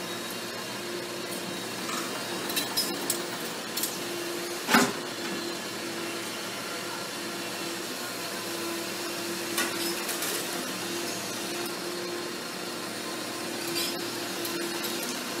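Doosan crawler excavator running steadily with a constant engine and hydraulic hum while its bucket breaks concrete and brick; debris knocks and crashes now and then, the loudest crack about five seconds in, with smaller clatters around two to four seconds, ten seconds and near the end.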